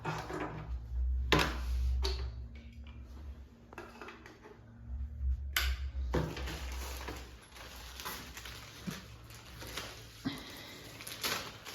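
Scattered knocks, clicks and rattles of soundbar accessories and packaging being handled and set down, with low handling rumble.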